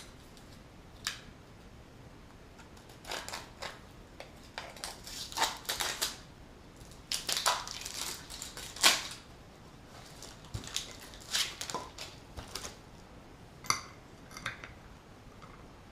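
Grinding discs and their packaging being handled and unwrapped: irregular rustles, scrapes and light clinks.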